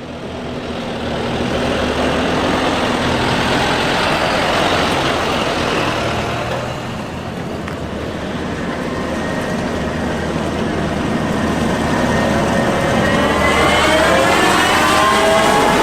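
Steady engine-like machine noise, with a whine rising in pitch over the last few seconds.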